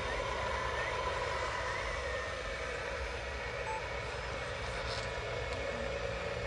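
Electric motors and gearboxes of a radio-controlled construction model running steadily: a constant whine over a low hum.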